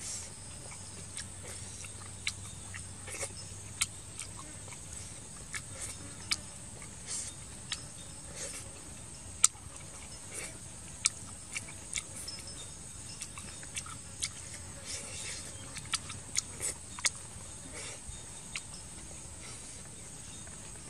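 Close eating sounds: irregular sharp smacks and clicks of chewing, about one or two a second, over a steady high drone of insects.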